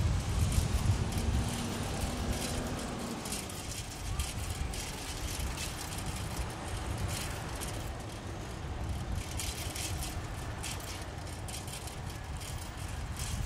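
City street traffic noise with wind rumble on the microphone as the camera moves, and scattered rattling clicks. The rumble is heaviest in the first few seconds, where a low steady engine hum runs under it.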